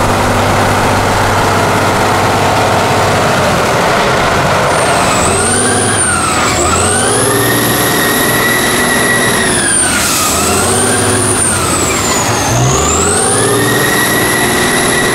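Off-road truck's diesel engine running steadily, then revving up and down several times under load, with a high whine that rises and falls with the revs.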